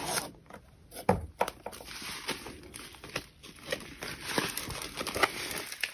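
Rustling and crinkling of a rolled, plastic-covered diamond-painting canvas being slid out of its cardboard box and unrolled by hand, with irregular soft scrapes and taps and one sharper knock about a second in.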